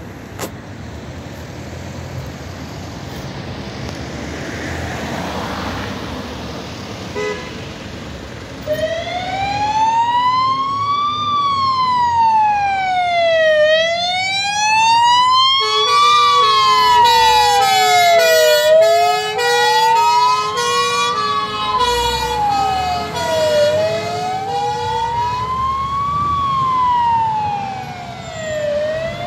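Fire engine siren on a water carrier. Road noise builds for about nine seconds, then a slow wail rises and falls roughly every five seconds. For about ten seconds in the middle, two-tone horns alternating between two notes sound over the wail, then stop while the wail carries on.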